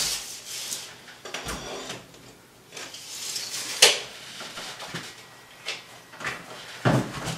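Slate ledger stone panels scraping and knocking against one another and the wall as they are handled and fitted. There is a sharp click about four seconds in and heavier thuds near the end.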